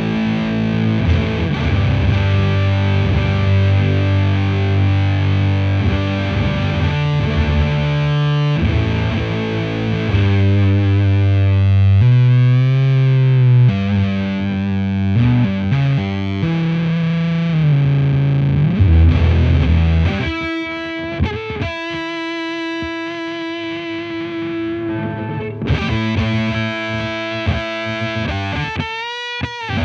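Electric guitar played through a Devi Ever Big Distortion Sound Machine fuzz pedal with both its sides combined and heavily compressed: thick, saturated low fuzz notes and chords. About 20 seconds in it moves to higher notes with string bends.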